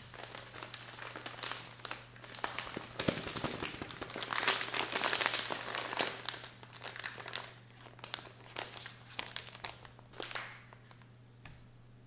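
Crinkling and crackling of a sealed plastic bread packet as a hand squeezes and turns it. The crinkling is densest around the middle and dies away near the end.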